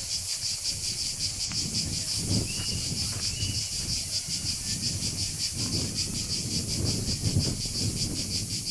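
Chorus of cicadas buzzing, a steady high-pitched drone with a fast, even pulse.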